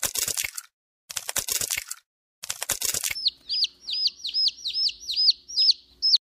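Eggshell cracking in three short crackly bursts, then a newly hatched chick peeping: a quick run of about nine high chirps, each falling in pitch, roughly three a second.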